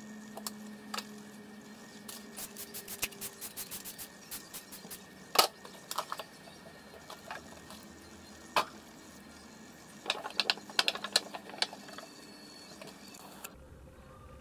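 Makeup packaging being handled: small plastic clicks and taps, a quick run of them, a sharper click about five seconds in, another near eight and a half seconds, and a dense cluster around ten to eleven seconds.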